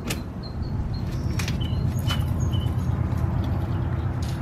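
Steady low rumble with a few sharp clicks, and faint short bird chirps over it.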